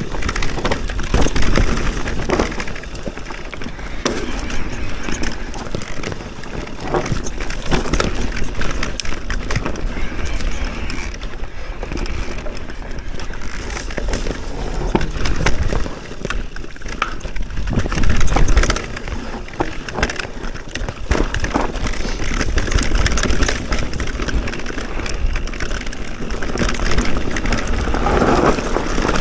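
Electric enduro mountain bike riding down a rough trail: tyres crunching over rocks and dirt, with frequent knocks and rattles as the bike jolts, over a steady low rumble. The hardest jolt comes about two-thirds of the way through.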